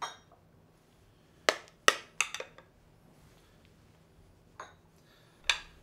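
Metal spoon clinking and knocking against a glass mixing bowl and small ceramic bowls as thick chocolate pudding is spooned out: scattered sharp knocks, with a quick cluster of several about two seconds in.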